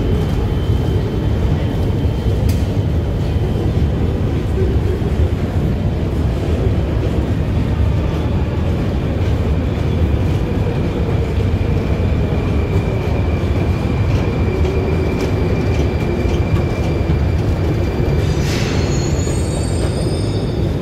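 Steady low rumble on a long, deep metro escalator, from the running escalator and the station around it. A faint high whine comes in about eight seconds in, and a short sharp sound with falling high tones comes near the end.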